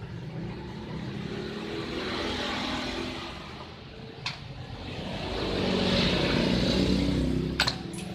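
Motor vehicles passing by twice, each swelling up and fading: a fainter one about two to three seconds in and a louder one about six to seven seconds in. A few sharp clicks near the end.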